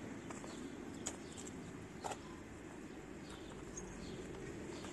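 Kittens chewing chunks of raw meat from a plate: faint wet clicks and smacks, the sharpest about two seconds in, over a steady low background noise.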